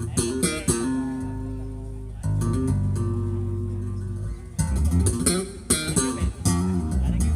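Instrumental stretch of a song: plucked guitar over held bass-guitar notes, with a run of sharp percussive hits in the second half.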